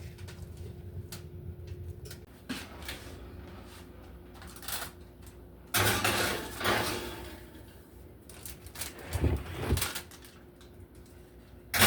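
Baking pans being put into a kitchen oven: scattered knocks and scrapes of the pans and oven door, a louder noisy stretch about six seconds in, and a few low thuds near the end as the door is shut. A faint steady hum runs underneath.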